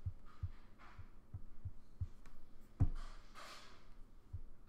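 Soft, low thuds repeating about three times a second, with one sharper knock about three seconds in, followed by a short breathy hiss.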